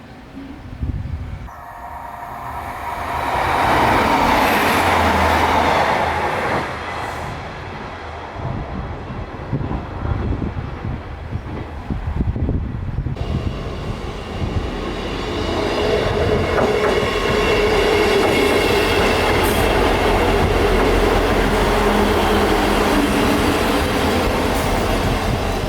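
Train running on the rails: the rumble swells to a peak a few seconds in, eases, then settles into a loud steady run with a held tone from about halfway through.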